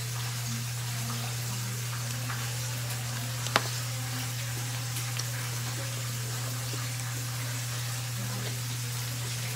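Steady hiss over a constant low hum, with one sharp click about three and a half seconds in.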